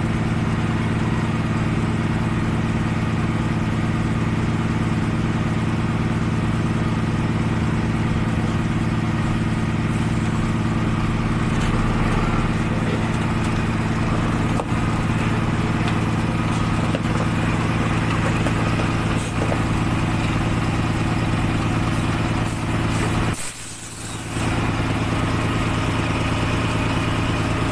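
Diesel engine of a HOWO 10-wheeler dump truck idling steadily, an even low drone, with a short drop in level near the end.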